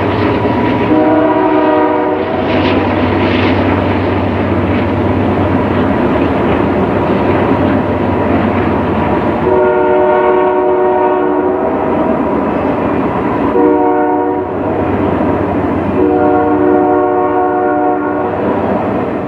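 Passing freight or passenger train with a Nathan Airchime multi-chime locomotive horn blowing a chord four times: a blast about a second in, then a long, a short and a long blast in the second half. Between and under the blasts the train runs by with steady wheel and rail noise.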